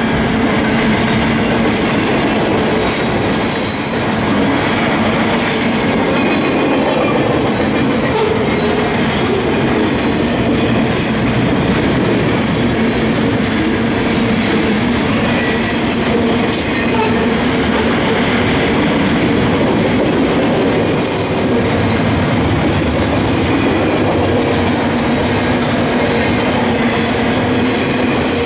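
Union Pacific double-stack intermodal train's container well cars rolling past: steady, loud wheels-on-rail noise that does not let up.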